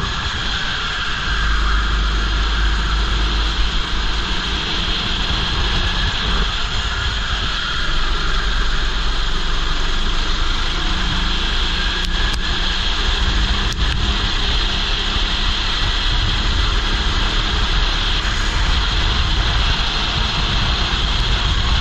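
Go-kart engine running with heavy wind rumble on a helmet chin-mounted action camera's microphone, a loud steady din throughout.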